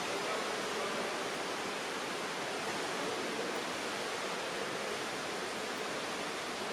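Steady wash of noise in an indoor pool hall during a water polo game: water churned and splashed by the swimming players, with no single sound standing out.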